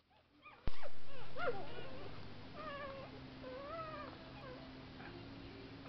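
Ten-day-old Tibetan Terrier puppies squeaking and whining as they nurse: a string of short, high calls that rise and fall. A single sharp click comes just under a second in, and a faint steady low hum runs underneath.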